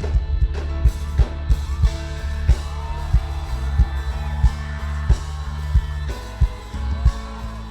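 Live gospel band playing, with a steady drum beat, bass and guitar, and some singing; the bass drops out about six seconds in.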